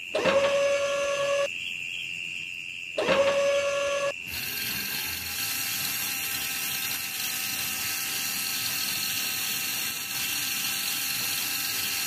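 Small electric motor of a homemade toy tractor with a rotavator attachment, switched on twice for about a second each time and spinning up into a steady whine, then left running continuously from about four seconds in with a noisier mechanical buzz.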